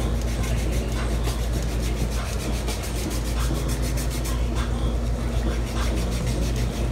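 A foot file rasping back and forth over the sole of a foot in quick, regular strokes, filing off dry, crusty skin during a pedicure. A steady low hum runs underneath.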